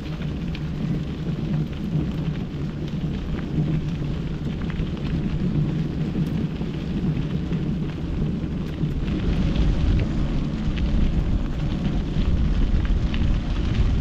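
Wind rumbling and buffeting over the microphone of a camera carried on a moving mountain bike, with scattered faint clicks. The rumble grows heavier about nine seconds in.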